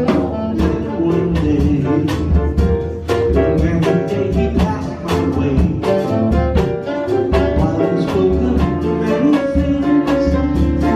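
Instrumental passage of a song with no singing: a steady run of plucked notes over a low bass line.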